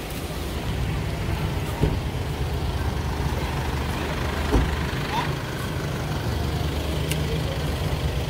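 A vehicle engine running steadily, a low rumble, with a couple of short knocks.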